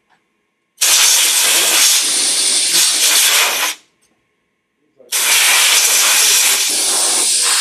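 Compressed-air blow gun blasting air through an aircraft hose assembly after its pressure test, in two loud, steady hisses of about three seconds each; the second starts about five seconds in and is still going at the end.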